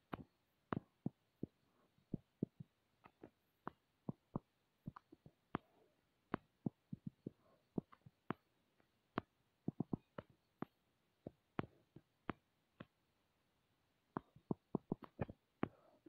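Light, sharp taps of a fingertip on a phone's touchscreen, coming irregularly, a few a second, with quick runs about ten seconds in and near the end.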